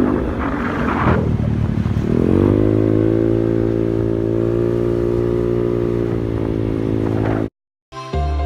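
A motor vehicle engine speeding up, its pitch rising over the first two seconds or so after a noisy rattle, then running at a steady pitch until it cuts off suddenly.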